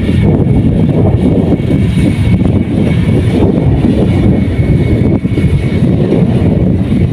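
Kubota combine harvester's diesel engine running steadily under load, a loud continuous drone with a faint high whine above it.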